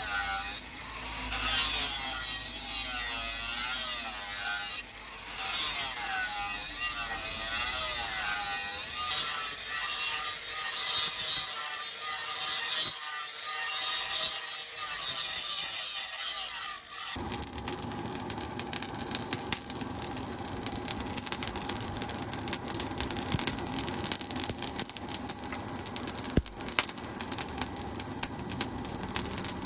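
Hand-worked steel: repeated sawing or filing strokes that squeal and waver in pitch. About halfway through it changes abruptly to a harsher, denser and steady rasping noise.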